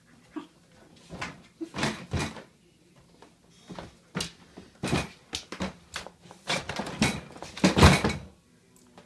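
Standard poodle puppy moving about inside a plastic dog crate: irregular scuffles, rustles and knocks against the crate, coming thicker and louder near the end.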